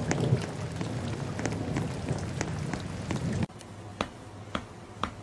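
Rain falling, with scattered sharp drops; about three and a half seconds in it cuts off abruptly to quieter, sparser dripping.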